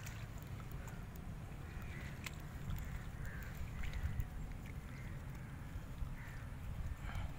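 Low, steady rumble on the microphone, with faint short bird calls about once a second and a few sharp clicks.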